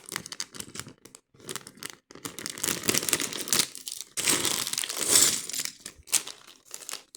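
Crinkly plastic parts bag being handled and rummaged through, with small LEGO pieces clicking against each other, in bursts with short pauses; the loudest stretch comes a little past the middle.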